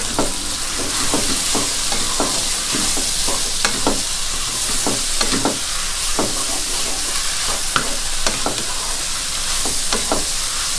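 Rice noodles, bean sprouts and garlic chives sizzling in a hot nonstick wok. A wooden spatula stirs and tosses them, scraping across the pan about twice a second.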